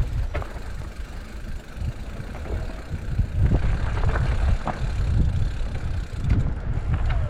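Electric mountain bike ridden over rocks: a rough, uneven low rumble of wind and trail vibration, broken by scattered sharp knocks and rattles as the bike hits the rocks, with a few brief squeaks.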